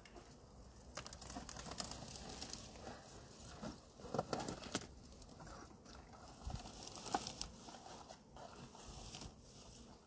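Rustling and crackling of brush and branches, with scattered light knocks, as a beekeeper in a bee suit moves through the bushes and sets a wooden nucleus box in place beneath a hanging swarm. The loudest knocks come about two seconds in, around four seconds in and about seven seconds in.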